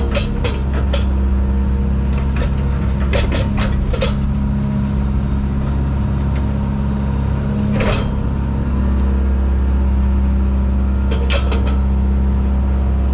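Diesel engine of heavy earthmoving equipment running steadily, with a few sharp metallic clanks.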